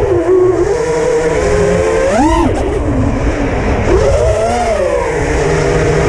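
Electric motors and propellers of a 6-inch FPV racing quadcopter whining in flight, the pitch following the throttle: a sharp climb about two seconds in and another swell about four seconds in, over a low rumble of wind.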